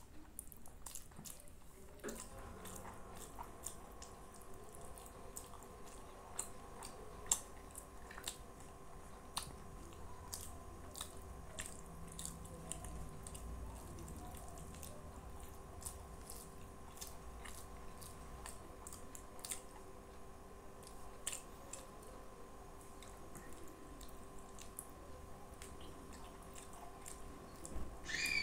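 Close-miked eating sounds of a person eating rice and curry by hand: wet chewing and soft, sticky clicks from mouth and fingers, coming irregularly.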